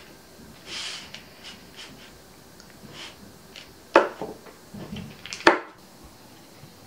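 Knife cutting a block of butter on its paper wrapper, with the paper rustling. There are two sharp knocks of the blade against the wooden chopping board, one about four seconds in and another a second and a half later.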